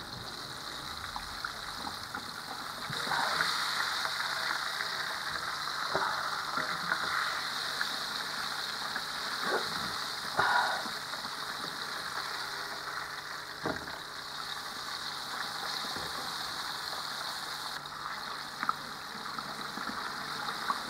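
Chicken-and-shrimp patty deep-frying in hot oil: a steady sizzling and bubbling, with a few light knocks from a wooden spatula in the pan.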